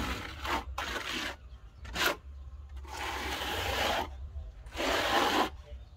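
Steel plastering trowel scraping render primer across cement board in about five separate strokes, the longest lasting about a second near the middle.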